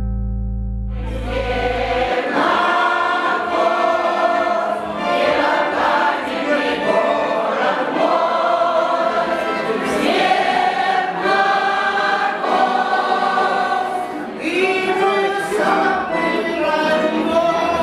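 A women's folk choir singing together, coming in about a second in over the end of a held chord.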